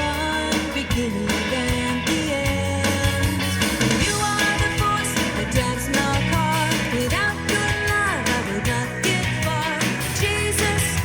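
A contemporary worship song sung by a children's praise team over a band backing of drums, bass and guitar, with a steady beat.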